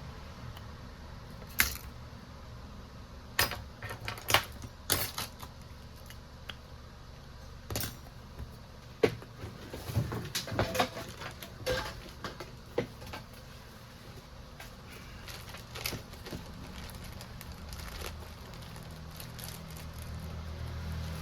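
Irregular light clicks and taps of small tools and phone parts being handled on a repair bench, over a low steady hum. The clicks come in a scattered run through the first two thirds, then thin out.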